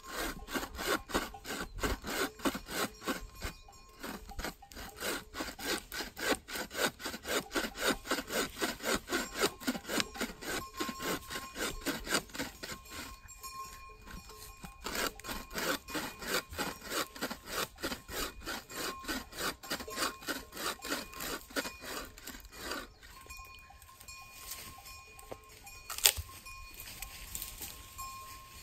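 Hand saw cutting through wood in steady back-and-forth strokes, about two to three a second, with a short pause partway through. The strokes grow fainter near the end, and there is a single sharp knock.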